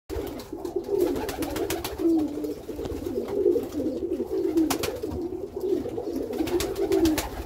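Several domestic pigeons cooing continuously, low wavering coos overlapping one another.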